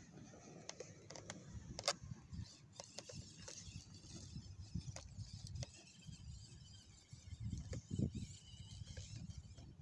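Footsteps crunching over loose, rocky dirt, with scattered sharp clicks and an uneven low rumble that is loudest about eight seconds in.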